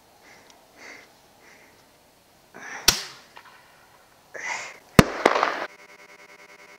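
A shotgun fires a non-lethal explosive scare round to haze elk. There is a sharp shot, then about two seconds later a louder bang with a second crack just after it as the round explodes downrange. A buzzing electronic rewind effect takes over near the end.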